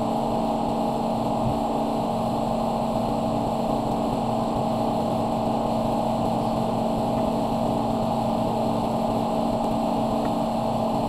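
A steady machine hum at a constant pitch and level, like an electric motor running, with no rise or fall.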